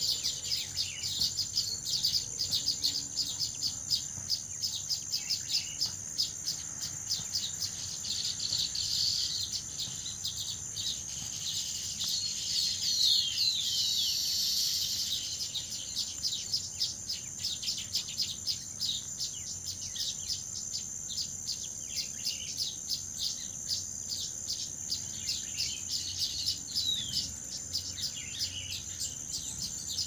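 Baya weavers chattering at their nesting colony: a dense run of quick, high chirps, with a few sliding calls in the middle, over a steady high insect drone like crickets.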